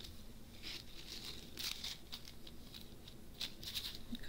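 Small plastic zip bags of rhinestone drills crinkling and rustling as they are handled, in short irregular bursts.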